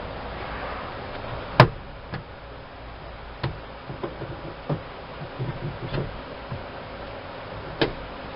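Plastic hatch trim panel being pried loose from its door clips: a series of sharp knocks and clicks at uneven intervals, the loudest about a second and a half in and another near the end.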